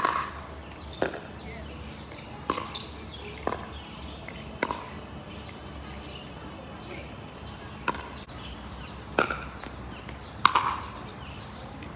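Pickleball rally: sharp pops of solid paddles hitting the hollow plastic ball, mixed with the ball bouncing on the hard court. There are about eight impacts, roughly a second apart, with a pause of about three seconds in the middle.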